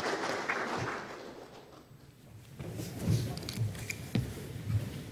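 Applause fading out in the first second or so, then, after a short lull, irregular footsteps and light thumps with a few sharp taps.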